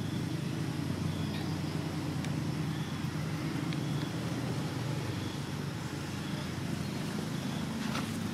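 Steady low outdoor rumble, with faint short high-pitched chirps repeating about once a second.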